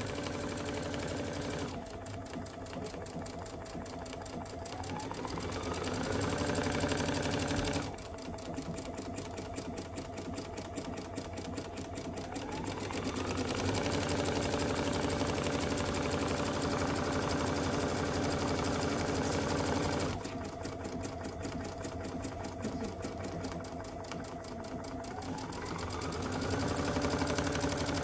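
Computerized sewing machine stitching out an extra-large buttonhole automatically with the buttonhole foot, the needle running steadily throughout. The motor speeds up with a rising whine three times and drops back abruptly to slower stitching twice, as the machine moves through the buttonhole's sequence of sides and ends.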